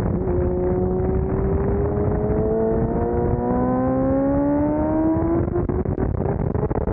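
Sport motorcycle engine under hard acceleration on a race track, its note climbing steadily in pitch as the revs rise, then breaking up about five and a half seconds in. The sound is dull and muffled, with the top end removed by heavy noise reduction.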